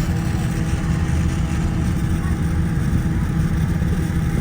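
Steady low engine rumble with a few faint steady tones above it, unchanging throughout.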